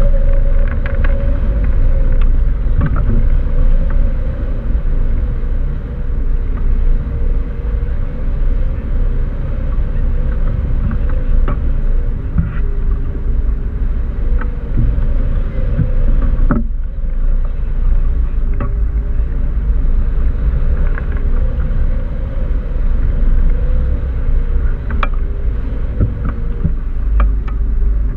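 Airflow buffeting the microphone of a camera mounted on a tandem hang glider's wing in flight: a loud, steady low rumble with a wavering hum and scattered light ticks, dipping briefly about two-thirds of the way through.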